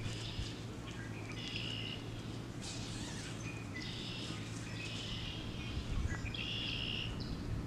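A bird repeating a short, buzzy call about once a second, over a steady low hum.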